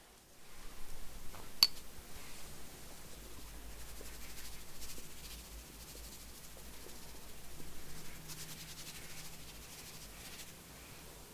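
Cocoa powder being sifted through a sieve: a soft, fast rattle of fine ticks from the sieve and falling powder, with one sharp click about one and a half seconds in.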